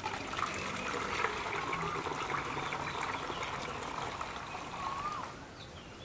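Liquid bacteria culture poured through a funnel into a bottle: a steady trickling pour that stops about five seconds in.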